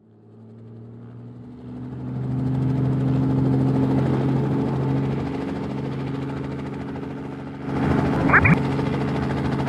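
Cartoon helicopter sound effect: rotor and engine fading in and running with a steady hum as the helicopter approaches. It grows louder about eight seconds in, with a brief rising swoop.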